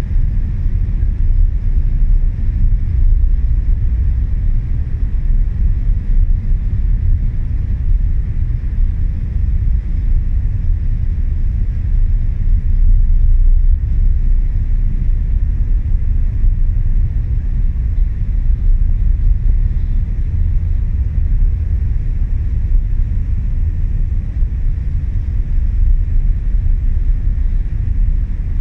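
Steady low rumble of the ro-ro ferry MV Armorique under way leaving port, heard from its open aft deck, with no distinct events.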